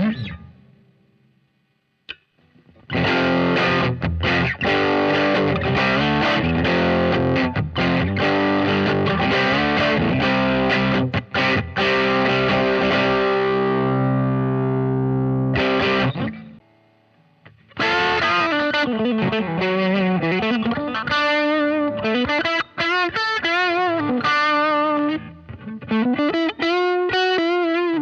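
Baum Backwing electric guitar played through heavy distortion and effects: a few seconds in, dense sustained chords and notes start. After a short break the notes swing widely up and down in pitch with deep bends and vibrato.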